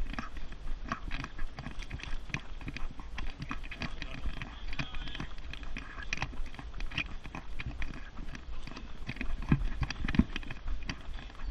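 Running footsteps on a tarmac path mixed with the rattle of a jogging stroller being pushed at a run, over a steady low rumble.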